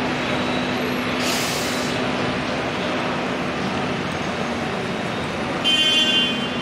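Busy street traffic with a steady engine hum, a short hiss about a second in and a louder, shrill hiss near the end, from the air brakes of double-decker buses.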